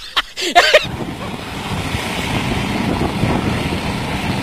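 Wind rushing over the microphone of a moving motor scooter, with steady road and motor noise beneath. It is preceded by a short swooping pitched sound that cuts off within the first second.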